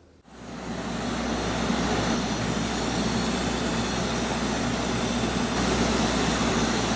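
Powder coating gun spraying: a steady rush of compressed air with a low motor hum beneath. It starts about a quarter second in and builds over the first second.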